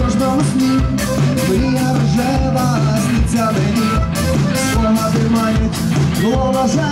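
Live rock band playing: a steady drum beat, a heavy bass line and electric guitar, with a voice singing over it.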